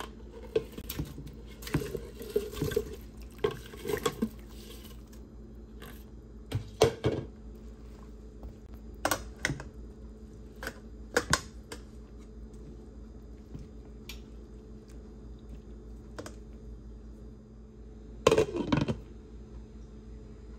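Broccoli florets dropped into a pot of boiling water and a metal spoon knocking against the pot: a run of short clatters and splashes. Near the end a glass lid is set on the pot with a clatter.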